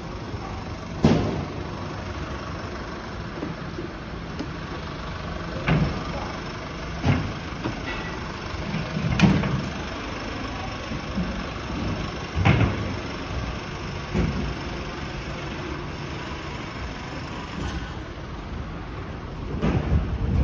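Street ambience: a steady hum of road traffic, broken by several dull thumps at irregular intervals.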